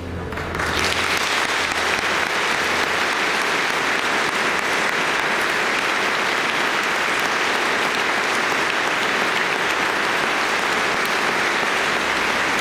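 A large congregation applauding, a dense steady clapping that builds in about half a second in and keeps going without a break.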